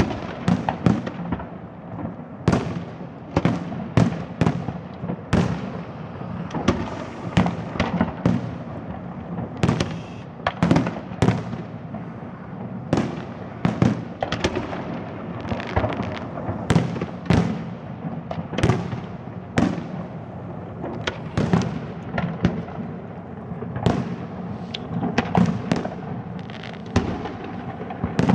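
Fireworks display going off: a rapid, continuous string of aerial shell bursts, several bangs a second, over a steady crackle and rumble with no pause.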